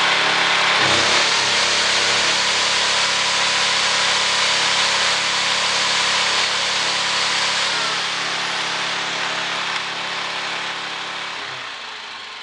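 Small engine of a 1200-watt Honda-clone portable generator running steadily after being started; the sound fades away near the end.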